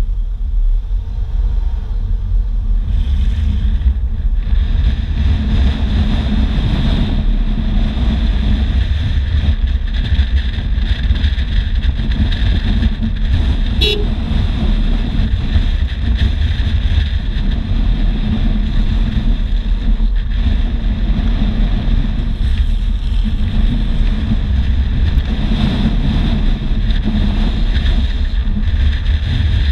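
Steady wind rushing over the microphone on top of low road rumble from a vehicle moving at speed downhill. A brief high squeak about halfway through.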